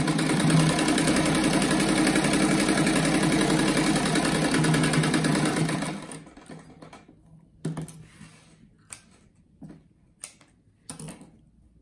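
Sewing machine running steadily as it stitches a fabric scrap and strip onto a backing cloth, stopping about six seconds in. After it stops, a few separate light clicks follow as the fabric is handled.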